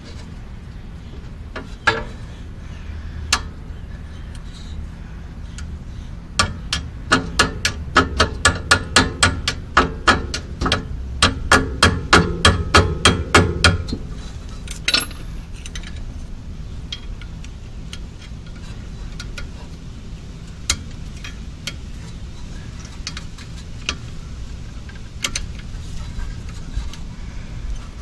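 Hammer tapping on metal in a steady run of sharp strikes, about three a second for some seven seconds with a short break near the middle. Each strike has a brief metallic ring. A few single knocks come before and after the run.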